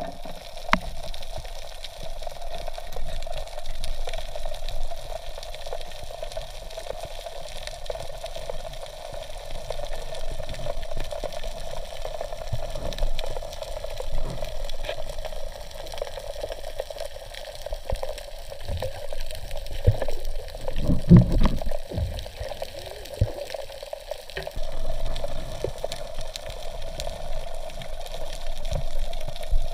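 Muffled water sound picked up underwater by a submerged camera: a steady rush of sloshing and bubbling, with a few louder low thumps around twenty seconds in.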